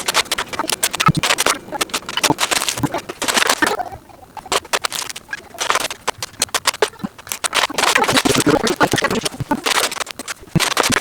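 Plastic Lego bricks clicking and clattering as pieces are handled and fitted together: dense runs of sharp clicks with brief lulls around four and six seconds in.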